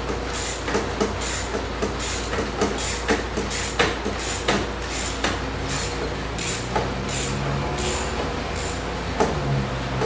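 Short clicks, roughly two a second and unevenly spaced, from a hand tool undoing the two Torx (star-drive) bolts that hold the door lock cylinder in a BMW E39 door, over a steady low hum.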